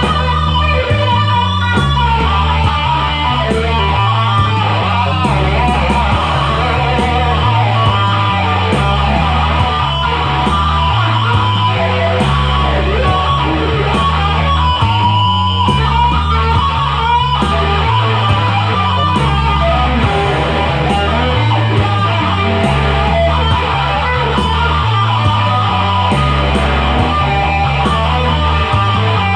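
Instrumental rock music: electric guitar playing lead lines over a repeating bass line and a steady beat.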